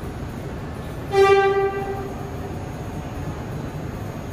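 NYC subway train horn giving one short single-tone blast about a second in, over a steady low rumble.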